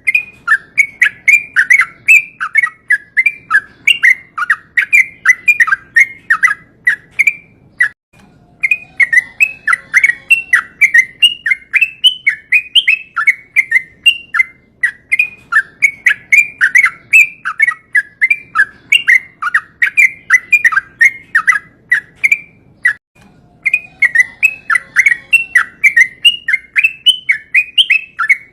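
A sooty-headed bulbul sings a long, fast run of chirping notes, several a second, with two short breaks, about a third and about four-fifths of the way through.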